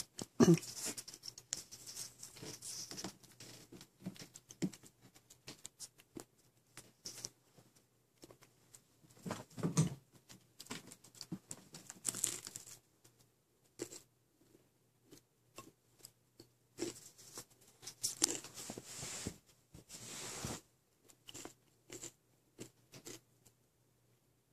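Bengal kitten scrabbling and clawing on a carpet-covered cat tower: an irregular patter of claw scratches and rustles in scattered flurries, the louder ones about ten seconds in and again around eighteen to twenty seconds, over a faint low hum.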